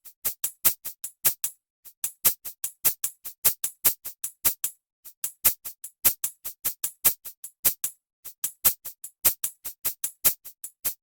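Electronic music: a drum-machine beat of sharp, very short hits, about five a second, in runs with short breaks between them.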